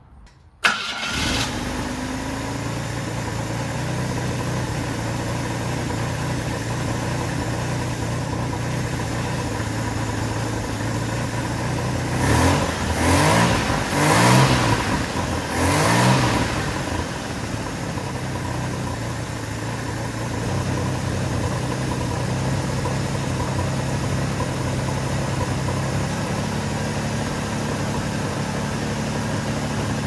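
GM 2.8-litre 60-degree V6 in a 1986 Jeep Comanche starting about a second in and then running, with a knock-like sound from an exhaust leak at the flange. It is revved up a few times near the middle, and the idle steps up near the end.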